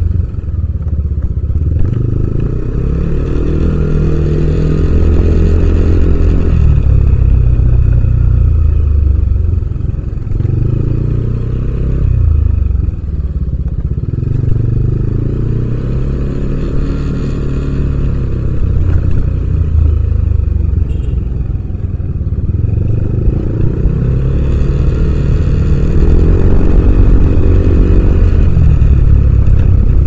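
Yamaha Aerox 155 scooter's single-cylinder four-stroke engine running loud under the rider, its exhaust note climbing and dropping in pitch several times as the throttle is opened and eased.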